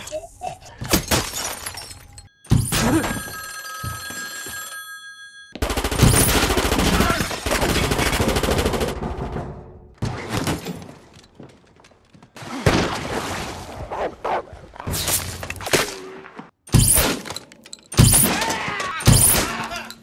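A cut-together run of film sound effects: sharp gunshots and impacts, a steady ringing tone lasting about two seconds early on, and a few seconds of dense loud noise near the middle.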